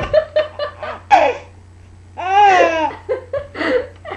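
Baby girl laughing in short bursts, with a longer, high laugh about two seconds in.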